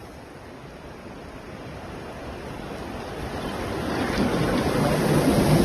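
Water rushing and splashing around a bamboo raft on the river, growing steadily louder.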